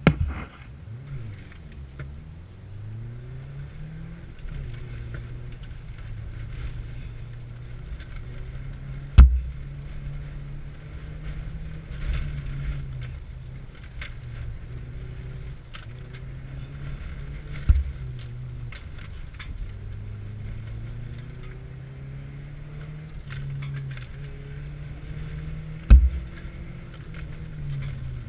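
Muffler-deleted flat-four of a stock 2002 Subaru Impreza Outback Sport heard from inside the cabin, its pitch rising and falling again and again as it is driven hard on dirt. Gravel ticks against the car throughout, and four heavy thumps stand out, about eight or nine seconds apart.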